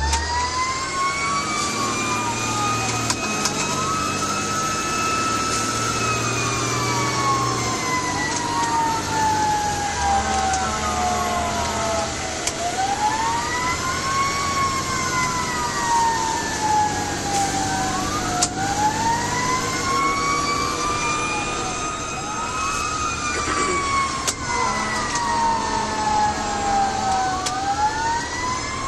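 Fire engine siren wailing, its pitch rising and falling slowly in uneven sweeps, over the truck's engine running.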